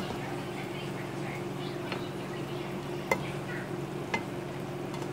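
Sardines with jackfruit and eggplant sizzling in a nonstick pan as a plastic spatula stirs them, with about three sharp knocks of the spatula against the pan. A steady low hum runs underneath.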